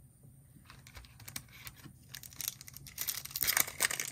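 Foil wrapper of a trading-card pack being crinkled and torn open by hand. The crackling starts softly about a second in and gets louder near the end as the wrapper is ripped.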